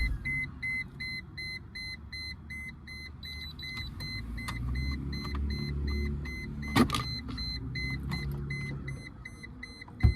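A steady string of short, high electronic beeps, about two and a half a second, over a faint low rumble. A sharp knock comes about two-thirds of the way through, and a click near the end.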